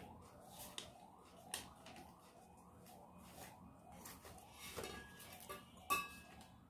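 Unboxing handling noise: paper and plastic packing rustling as a booklet is leafed through and hands dig into a cardboard box, with a few light knocks and one sharp, briefly ringing clink about six seconds in.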